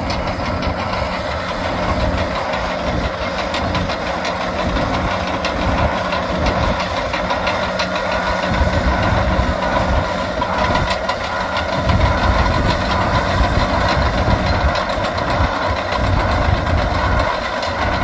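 Caterpillar D6N crawler bulldozers' diesel engines running under load, with a steady low rumble and the rapid metallic clatter of their steel tracks as they push and level sand.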